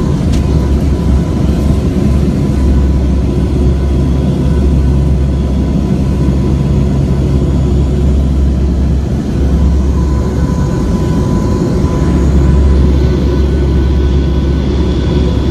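Aircraft engine noise: a loud, steady drone over a deep rumble, with a few faint steady tones above it.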